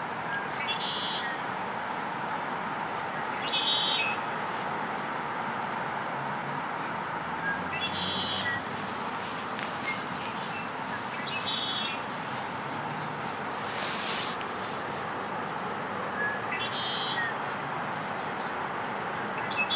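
Male red-winged blackbird singing its conk-la-ree song, repeated about six times a few seconds apart. Each song is a short opening note followed by a buzzy trill, heard over a steady background hiss.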